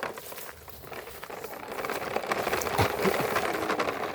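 Toy truck pushed along the ground, its plastic wheels and body rattling with many small clicks and scrapes.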